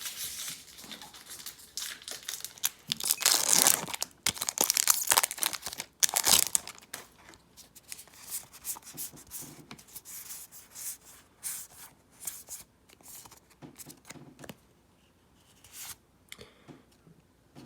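A Magic: The Gathering booster pack wrapper being torn open and crinkled, in irregular noisy bursts that are loudest about three to seven seconds in, then softer rustling that dies away near the end.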